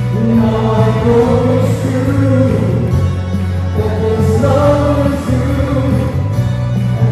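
Live praise band playing a worship song: several voices singing over electric bass guitar and keyboard, with a strong bass line.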